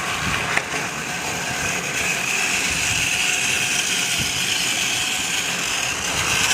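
Motorised toy train engine running along its track: a small battery electric motor whirring steadily with a high whine.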